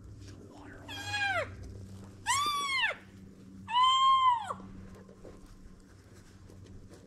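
Three cow elk mews about a second apart, each a short whining call that rises and then falls in pitch.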